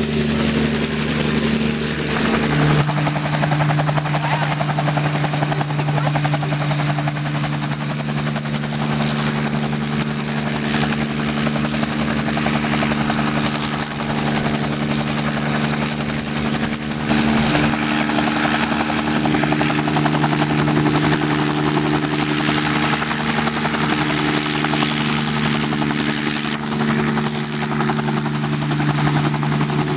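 Helicopter running steadily: a loud, continuous engine and rotor noise with a low hum, whose pitch shifts slightly about three seconds in and again around seventeen seconds.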